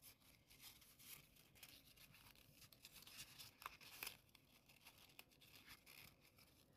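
Faint rustling and crinkling of paper as curled origami kusudama units are slotted together by hand, with a couple of slightly crisper ticks about halfway through.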